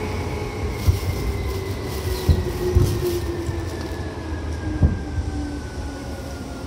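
Seibu 2000 series electric commuter train running, heard from on board. Its motor whine falls steadily in pitch as the train slows, over a low rumble, with a few irregular thumps from the wheels.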